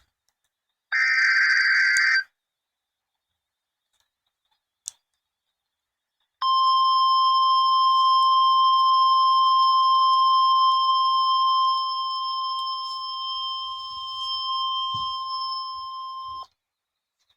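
NOAA Weather Radio Emergency Alert System activation: the last of three SAME digital header bursts, a short buzzy data chirp, then a click, then the 1050 Hz warning alarm tone, a steady high beep held for about ten seconds that drops in level partway through and cuts off sharply. The alarm tone marks a new warning, here a tornado warning.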